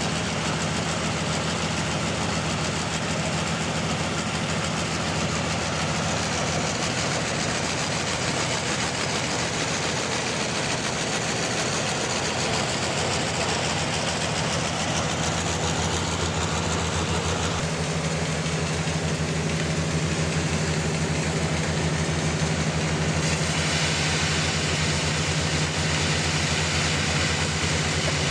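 Engine-driven sawmill running steadily through a large trembesi log, the engine hum under a dense hiss of sawing. About 17 seconds in the engine note shifts lower and stronger, as under heavier load.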